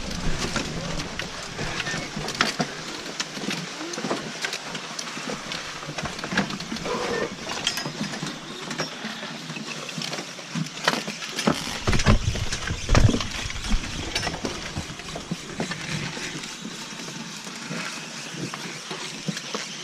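Skis sliding and scraping on snow with ski poles clicking as a skier shuffles forward: a steady hiss broken by frequent sharp clicks, with a cluster of heavier knocks about twelve seconds in.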